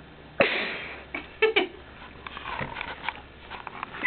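Sniffing and sharp breaths through the nose from a person trying to make herself sneeze. A sudden loud sniff comes about half a second in, then two quick short ones shortly after, then softer breathing.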